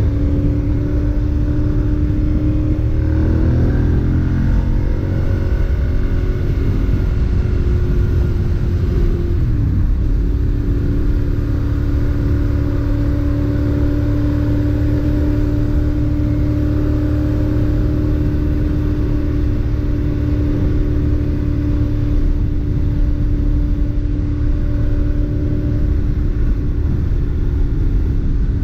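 2011 Ducati Monster 696's air-cooled L-twin engine through its stock exhaust, heard from the rider's seat while cruising. The engine note shifts a few times over the first few seconds, the revs dip briefly about ten seconds in, and then it holds a steady pitch.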